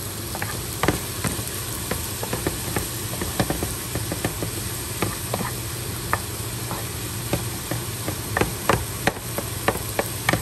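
A wooden spoon scraping and tapping against a nonstick frying pan as fried rice is stirred and tossed, with irregular sharp knocks that come thicker near the end. Under it runs a light sizzle of the rice frying and a steady low hum.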